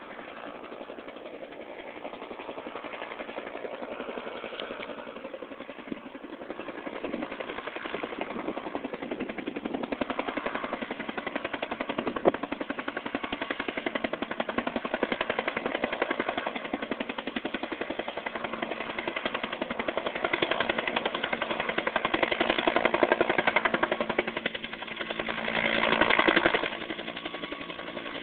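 Helicopter rotor chop, a fast steady beating that builds as the aircraft comes closer. It is loudest about 26 seconds in, then drops off sharply.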